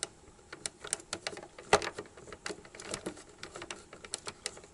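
Irregular light clicks and rattles from the cassette mechanism of a Sharp GF-6060 radio cassette as a hand works at the tape in its well. One louder click comes a little under two seconds in. The deck is in play but the take-up is not turning, which the owner puts down to a rubber drive belt.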